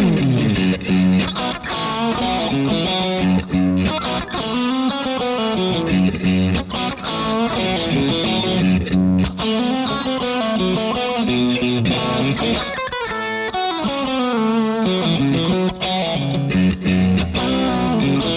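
Electric guitar playing a riff of chords and single-note lines through a Line 6 Helix amp-modeller preset, with light overdrive and effects. A quick flurry of notes comes about two-thirds of the way through.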